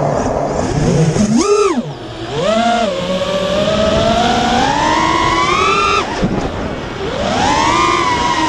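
FPV freestyle quadcopter's motors and propellers whining, the pitch rising and falling sharply with each throttle punch. There are quick swells about one and two seconds in, a long climbing whine that cuts off suddenly, then another rise near the end.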